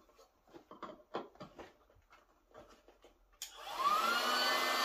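Light rustling and small knocks of hands working at the vinyl boat's valve, then about three and a half seconds in an electric air pump switches on, its whine rising as the motor spins up and settling into a steady loud drone as it starts inflating the boat.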